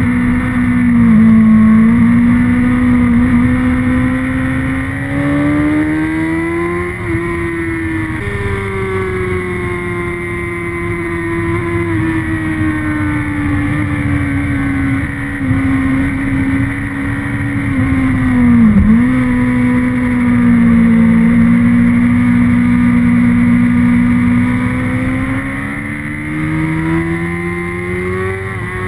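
Motorcycle engine heard onboard at high revs on a racetrack, its pitch rising and falling slowly through the corners. There is a gear change about eight seconds in and a sharp dip in pitch about nineteen seconds in, with wind rush underneath.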